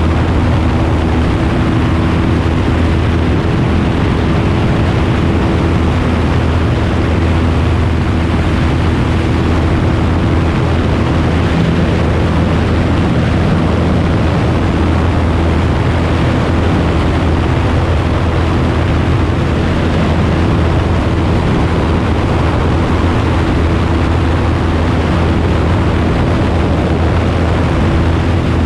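Single-engine light aircraft's piston engine and propeller running at take-off power through the take-off roll, lift-off and climb: a loud, steady drone with a broad rushing noise over it, heard from outside on the engine cowling.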